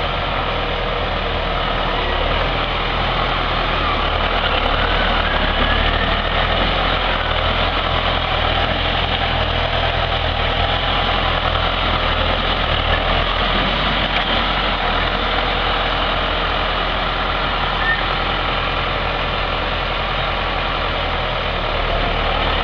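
John Deere 6410 tractor's four-cylinder turbo diesel engine running steadily as the tractor drives around in a circle.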